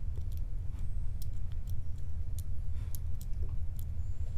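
Faint, irregular metallic clicks and scrapes of a lock pick probing the pins inside a brass pin-tumbler lock cylinder under tension, over a steady low hum.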